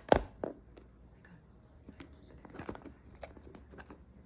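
A cardboard card box and its packaging being handled and worked open by hand: a sharp knock just after the start, then scattered small clicks, taps and rustles.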